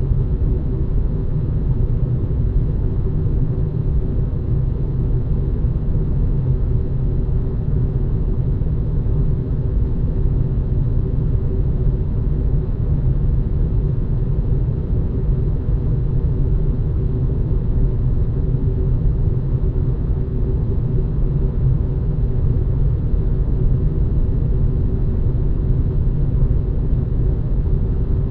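Steady rush of air through a ventilation duct with a heavy low rumble and a deep, even hum above it.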